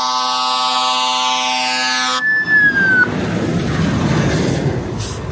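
A siren sweeping down and back up over a loud, steady horn tone. The horn cuts off sharply about two seconds in, and the siren winds down soon after, leaving a noisy stretch.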